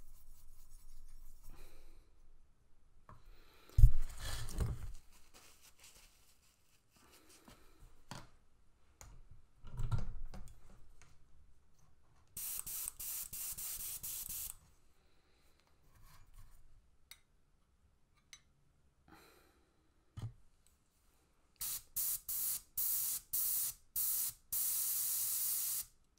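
Gravity-feed airbrush spraying thinned paint: one hiss of about two seconds midway, then a run of short hisses in quick succession near the end. Earlier, a brush scrapes in a metal palette cup, and there are two knocks, the first one loud.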